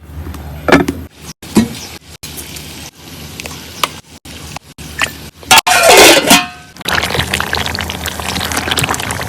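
Cooking sounds in short, abruptly cut clips: food sizzling in a pan, with sharp clinks of utensils against the pot. The loudest noise comes about six seconds in.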